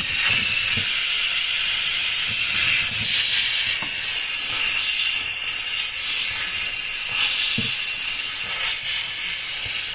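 Handheld steamer jetting steam onto the ice in a frosted fridge to melt it: a steady, loud hiss that cuts off suddenly at the very end.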